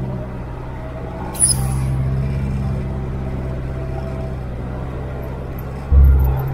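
A 4x4's engine and road noise heard from inside the cab while driving, a steady low drone. About a second and a half in there is a brief sharp hiss, and near the end a heavy low thump.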